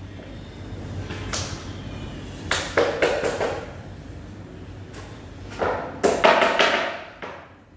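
Cordless drill driving screws into particleboard furniture panels: two rattling bursts about a second long, each a few seconds apart, with a shorter burst before them.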